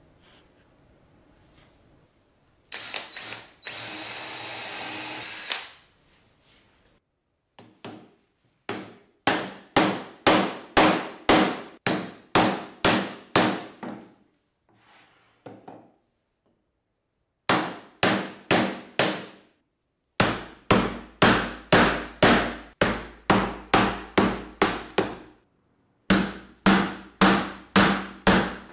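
A power tool runs for about three seconds. Then come runs of sharp, even strikes, two to three a second, as a carving gouge is driven into maple with a mallet, each run stopping short.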